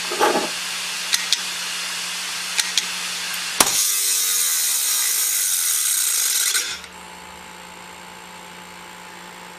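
A computer hard drive clicking in pairs, about a second and a half apart, over a steady hiss and hum: the repeated head knocking of a failing drive. About three and a half seconds in, a sharp click sets off a louder rushing noise that cuts off about three seconds later, leaving a quieter steady hum.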